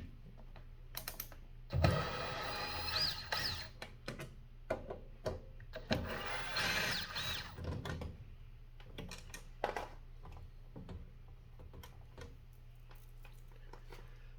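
Hands working on the plastic parts of a mini claw machine: scattered clicks and knocks, with two louder stretches of scraping and squeaking, about two seconds in and again about six seconds in.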